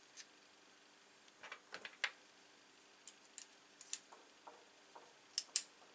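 Small metal clicks and ticks from a brass Euro-cylinder lock and its parts being handled during assembly, coming irregularly: a quick cluster about one and a half to two seconds in, a few scattered ones after, and two sharper clicks near the end.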